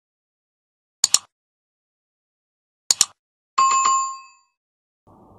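Subscribe-button sound effects: two quick double clicks about two seconds apart, then a bright bell ding that rings out and fades within about a second.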